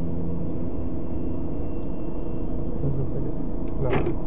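A car driving, heard as a steady low rumble of engine and road noise. A brief sharp sound comes shortly before the end.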